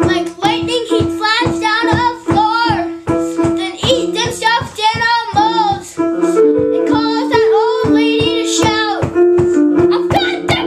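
A child singing an original song over an electronic keyboard, which holds chord notes under a steady beat of about four strokes a second.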